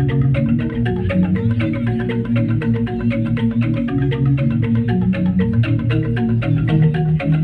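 Balinese gamelan ensemble playing a tabuh: rapid, evenly spaced mallet strokes on tuned metal keys over sustained deeper tones.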